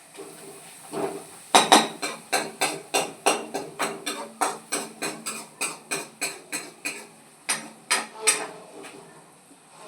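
Rapid, even knocking of a kitchen utensil on a hard surface, about three to four strikes a second for around five seconds, then three more slower strikes.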